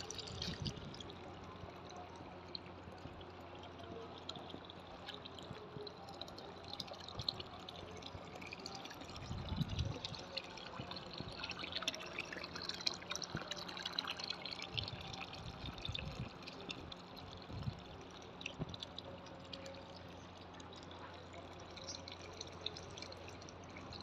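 Water pouring steadily from the spout of a grey stone pot fountain into its stone basin, splashing and trickling over pebbles. A few low thuds come about ten seconds in and again a little later.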